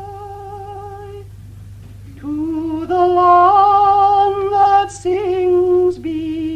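A woman singing a slow folk song unaccompanied, in long held notes with vibrato. One note ends about a second in, and she takes up the next phrase about two seconds in. A steady low hum from the old recording runs underneath.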